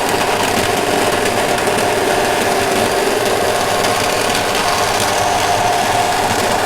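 Power saw running steadily as it cuts through a sheet of plastic.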